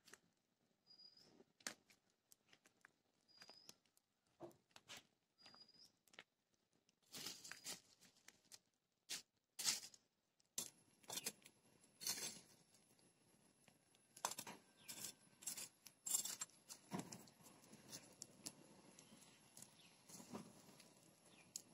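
Faint, irregular crackling and snapping of a small open fire of dry twigs and palm leaves roasting raw cashew nuts in their shells, with clicks and scrapes as a metal ladle stirs the nuts in the flames.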